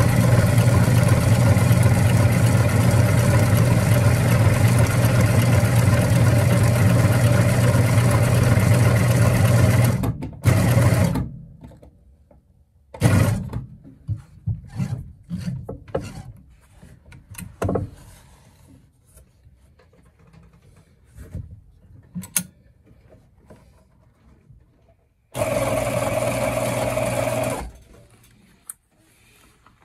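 TuffSew portable walking foot sewing machine, driven by a small bolt-on domestic motor through a belt speed reducer, sewing through layers of leather strap. It runs steadily for about ten seconds and stops abruptly. Scattered clicks and handling noises follow, and it runs again for about two seconds near the end.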